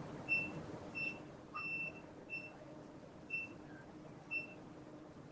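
Operating-room equipment beeping: short, high, single-pitch electronic beeps, one roughly every 0.7 to 1 second, over a faint steady hum.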